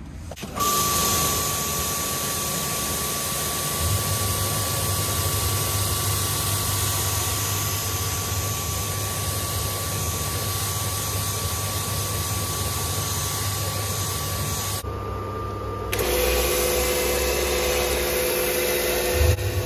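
A motor-driven cleaning machine running steadily: a low motor hum and a rushing hiss with a high, steady whine. The sound changes abruptly twice near the end.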